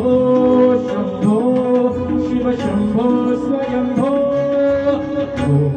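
A man singing into a microphone over tabla, amplified through a PA system. The held vocal notes slide between pitches over the regular strokes of the drums.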